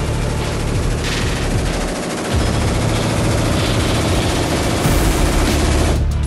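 Automatic gunfire: a machine gun firing long, rapid bursts, echoing in an indoor shooting range, with a brief break about two seconds in.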